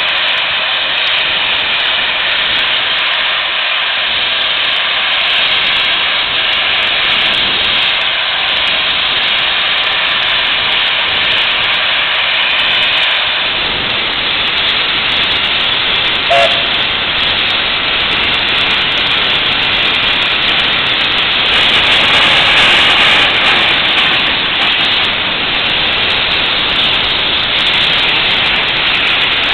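Steam locomotive 29013, a Belgian type 29 2-8-0, standing and venting steam in a loud, steady hiss. The hiss grows fuller and deeper about thirteen seconds in, as steam blows from the cylinder drain cocks, and there is a very short tone about sixteen seconds in.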